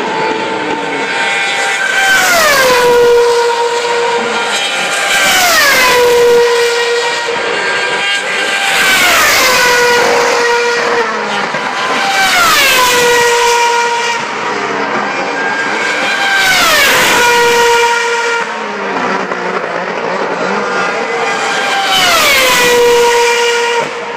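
2013 Formula 1 cars with 2.4-litre naturally aspirated V8 engines passing at full speed one after another, about six of them. Each is a high-pitched scream that drops sharply in pitch as the car goes by, then fades away down the straight.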